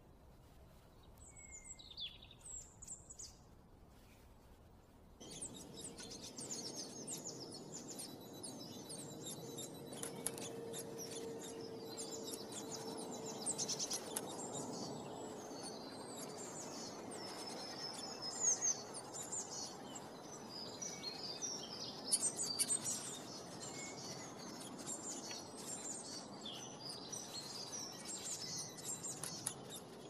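Small songbirds chirping and calling: a few sparse high calls at first, then from about five seconds in a busy, continuous chorus of many overlapping chirps.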